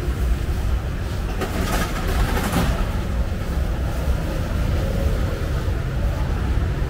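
Steady low rumble of street background noise, with a few brief clatters about one and a half to two and a half seconds in.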